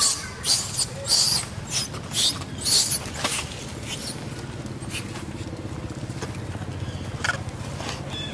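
Macaques scuffling over an infant: a quick run of about seven sharp, hissy bursts in the first three seconds, then quieter, with a steady low hum underneath.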